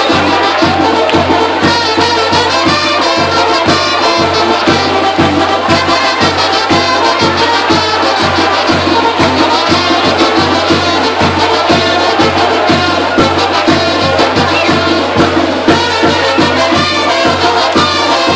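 Live brass band playing a lively dance tune with a steady beat, trumpets and trombones carrying the melody.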